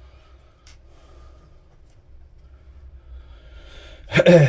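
Faint handling of a small metal two-stroke carburetor body, with a light click about a second in, over a low steady hum. Near the end comes a man's short, loud voiced breath.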